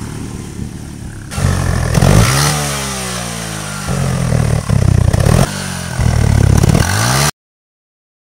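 Small commuter motorcycle engine revved in about five short bursts, its exhaust popping and crackling with backfire as flames shoot from the pipe. This is a deliberately induced exhaust backfire. The sound cuts off abruptly near the end.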